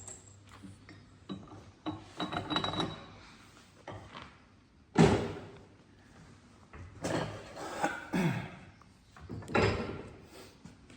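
Knocks and clunks of tools and metal parts being handled during the pin-and-bush job, with one sharp loud bang about five seconds in.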